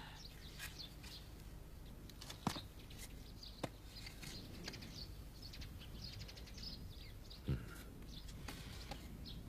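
Faint chirping of small birds, with a few soft knocks, the loudest late on.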